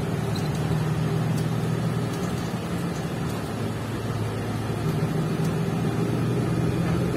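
Cabin noise of a moving city bus: the engine's steady low hum and road noise, with a few faint light ticks.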